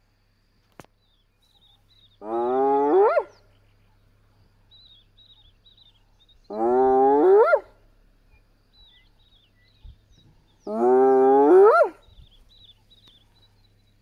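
Spotted hyena whooping: three loud calls about four seconds apart, each about a second long and ending in a sharp upward sweep in pitch.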